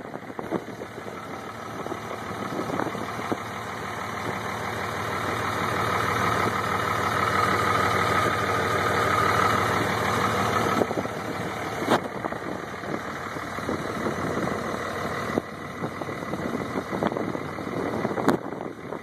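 A 2003 Dodge Ram 3500's 5.9 L Cummins turbo-diesel running through a new BD stainless steel exhaust, heard from under the truck. It idles, grows louder with a whine over several seconds, then drops back to idle about eleven seconds in.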